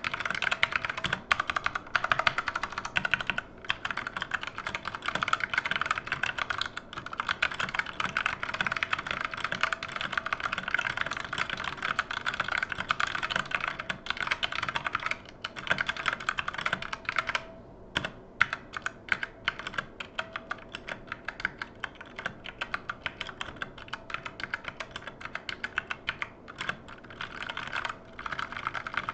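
Keys of a Redragon K530 mechanical keyboard being typed on rapidly. About halfway through the typing thins out to separate single key presses for several seconds, then turns rapid again near the end. The owner believes the switches are Redragon red linear switches.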